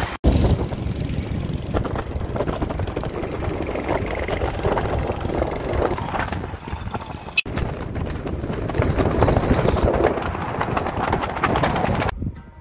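Engine and road noise from a moving vehicle, a dense rumbling noise that breaks off abruptly twice where clips are joined.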